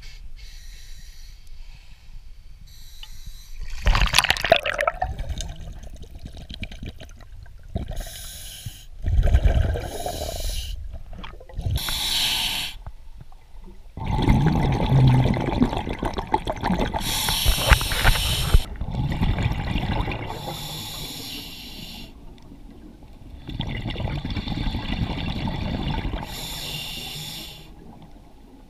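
Scuba diver breathing underwater through a regulator: hissing inhalations alternating with louder bubbling exhalations, several breaths in a row.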